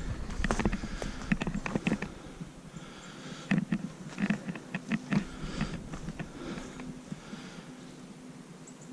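Footsteps of a person walking over rough ground: irregular steps and small knocks, thinning out after about six seconds.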